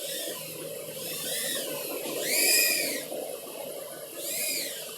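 EMAX TinyHawk S micro FPV quadcopter's brushless motors whining, the pitch swelling up and falling back in about four throttle bursts, the loudest about two and a half seconds in.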